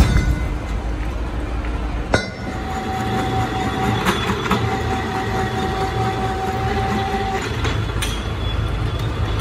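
Steady low hum of workshop machinery with sharp metal clanks at the start and about two seconds in, as steel truck wheel hubs are set down onto a stack. A thin steady whine sounds through the middle.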